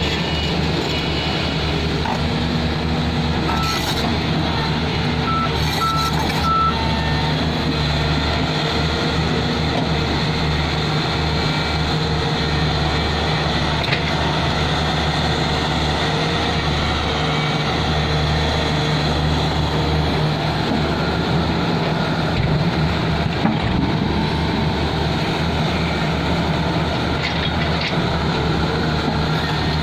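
Excavator's diesel engine running steadily under work, with a deep, even hum. Four short high beeps sound between about four and seven seconds in.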